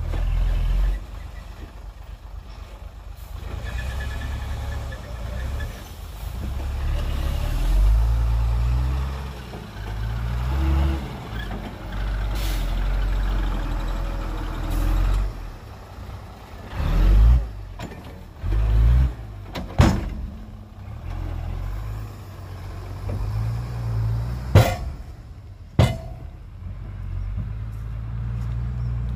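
Heavy diesel engines of dump trucks and a bulldozer running and revving, their pitch rising and falling. Three short sharp sounds stand out in the last third.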